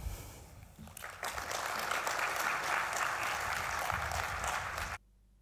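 Audience applauding, starting about a second in and cutting off suddenly near the end.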